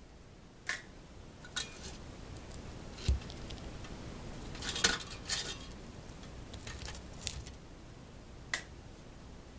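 Light clicks and clinks of toast being lifted from the slots of a chrome Toastmaster pop-up toaster and set down, with a dull thump about three seconds in and a cluster of taps about five seconds in.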